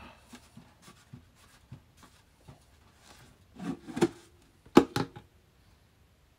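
Lid of a plastic five-gallon bucket being worked loose and pulled off: light scraping and small clicks of hands around the rim, then two louder clacks of the plastic lid, about three and a half and five seconds in.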